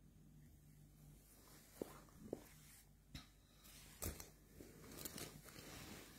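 Near silence: faint room tone with a low hum and a few faint scattered clicks.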